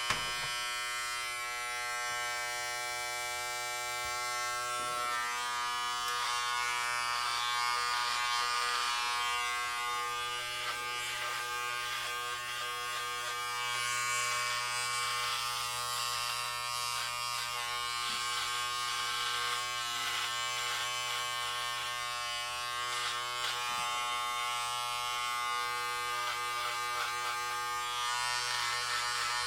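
Electric hair clippers buzzing steadily while cutting hair, a hum with a shifting rasp of blades through hair.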